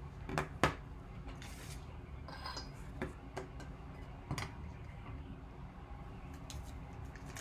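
Scattered light clicks and taps as a hard plastic graded-card slab and a card pack are handled and set down on a tabletop, over a faint steady low hum.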